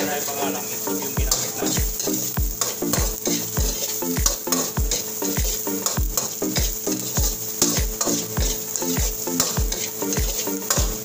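A metal ladle scrapes and stirs chopped aromatics in a steel wok while they sizzle steadily in hot oil. Background music with a steady thumping beat plays under it from about a second in.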